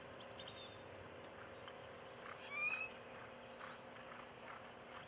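A short, high-pitched call about two and a half seconds in, over a faint steady hum.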